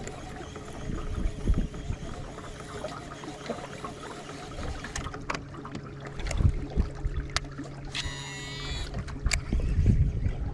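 Electric trolling motor on a small fishing boat humming steadily and stopping about nine seconds in, with wind buffeting the microphone. A few sharp clicks come from the baitcasting reel as it is handled before a cast.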